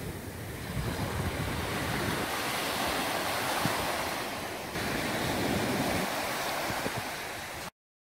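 Ocean surf washing onto a beach, a steady rushing wash of waves. The sound changes abruptly about two-thirds of the way through and cuts off suddenly near the end.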